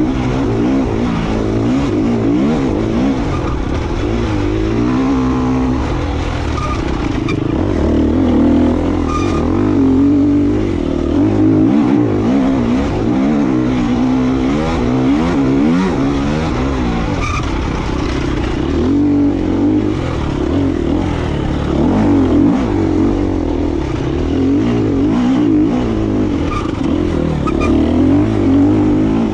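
KTM EXC 250F single-cylinder four-stroke enduro engine under way, its revs rising and falling repeatedly as the rider works the throttle along a dirt trail.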